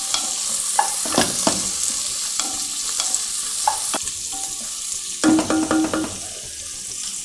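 Sliced onions sizzling in hot oil in a nonstick pot while a wooden spatula stirs them, clicking and scraping against the pan. A short steady tone sounds about five seconds in.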